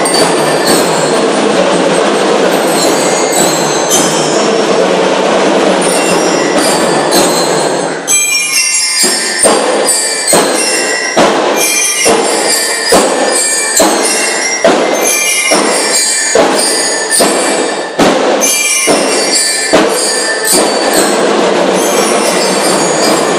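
School drum and lyre corps playing: marching drums with metal bell lyres ringing over them. About eight seconds in, the sound opens into loud, evenly spaced drum beats a little under a second apart.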